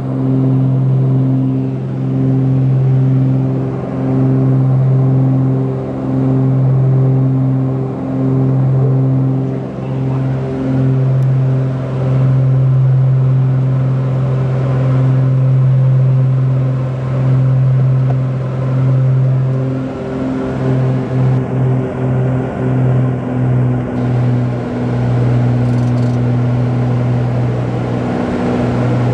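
Steady engine and propeller drone of a small six-passenger plane in cruise, heard inside the cabin. The low hum swells and fades about every two seconds, pulsing faster for a few seconds about two-thirds of the way through.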